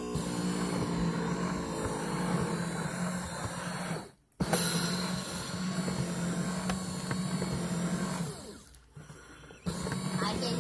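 Electric foot massager running with a steady motor hum, picked up from inside the machine among its turning kneading nodes. The hum cuts out for a moment about four seconds in, drops away again for over a second near the end, and starts up again each time.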